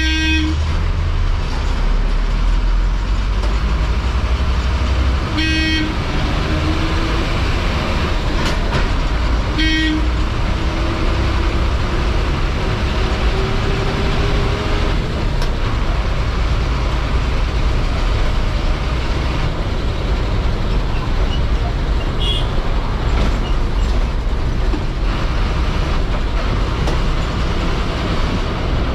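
Ashok Leyland bus diesel engine running steadily under load with road noise, heard from inside the driver's cabin. A horn sounds and stops about half a second in, then gives two short toots about 5 and 10 seconds in. The engine note rises slowly between about 10 and 15 seconds.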